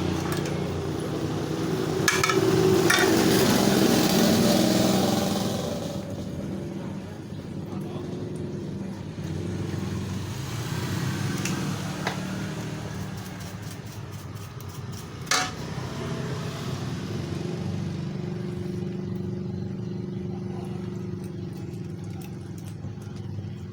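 A motor running steadily with a low, even hum, under a loud hiss for the first six seconds; a few sharp clicks, the loudest about fifteen seconds in.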